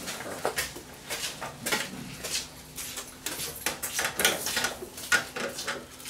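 Hands working on wiring and sheet-metal parts inside an open microwave oven cabinet: irregular clicks, taps and rattles of metal and connectors.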